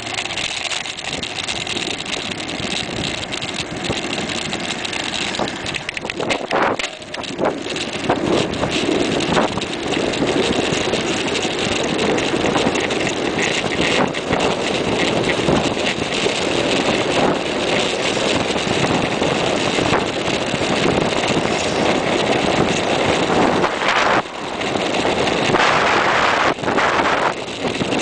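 Wind rushing over the microphone of a camera mounted on a moving mountain bike, a steady loud noise that grows louder and more uneven near the end.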